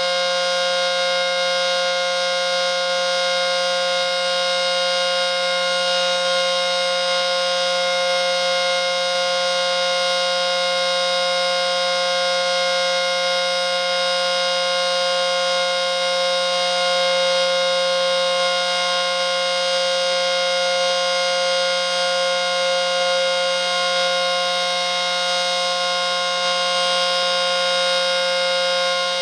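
ACA Screamer S-10 outdoor warning siren sounding a steady tone on its test. It holds one unchanging pitch with many overtones, loud and even.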